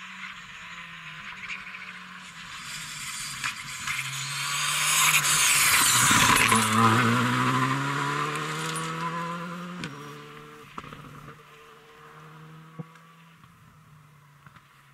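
Rally car approaching and passing at speed, loudest about six seconds in. It then accelerates away with its engine revs climbing, breaking off twice for quick upshifts, and fades into the distance.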